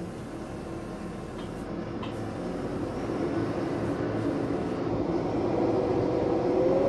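A steady machine hum that grows gradually louder, with a held tone that rises slightly near the end.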